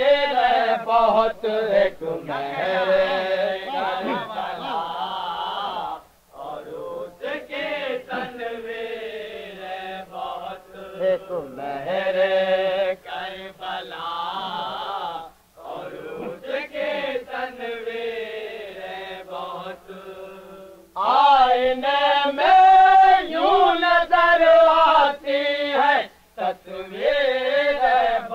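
Men's voices chanting an Urdu devotional salam in slow, drawn-out melodic phrases with short pauses between lines. The chant grows louder about three-quarters of the way through. It is heard on a muffled 1970s tape recording.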